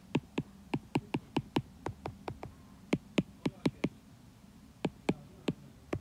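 Stylus tip tapping and clicking on a tablet's glass screen while handwriting letters: a quick, irregular run of sharp clicks, with a short pause about four seconds in.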